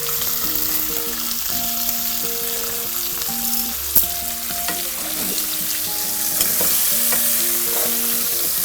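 Chicken pieces searing skin-side down in hot oil in a casserole over lowered heat: a steady frying sizzle full of fine crackles, with one sharp click about halfway through. A faint background tune of short notes plays underneath.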